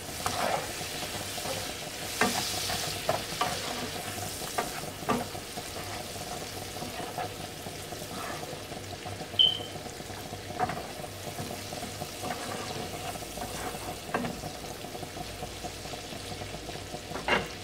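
King prawns in onion masala sizzling in a non-stick frying pan as the masala is fried down, while a wooden spatula stirs it, with scrapes and taps against the pan now and then. A short high beep sounds a little past halfway.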